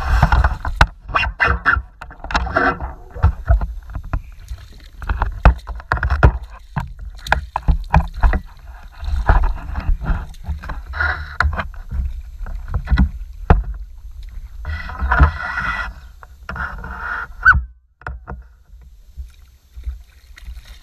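Irregular knocks and bumps on a plastic kayak and its camera mount while a catfish is landed and handled, with short bursts of noise between the knocks.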